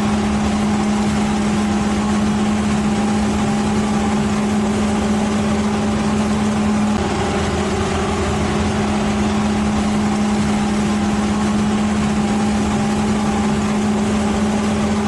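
A machine engine running steadily under load with a constant droning hum. The pitch shifts slightly about seven seconds in.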